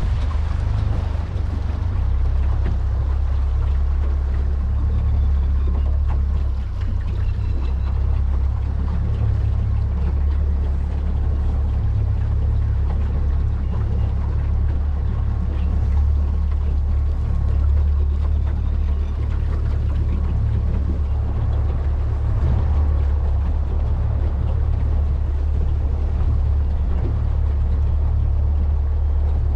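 Mercury outboard motor running at a steady cruising speed, a constant low drone with no change in pitch, as the boat moves along calm water.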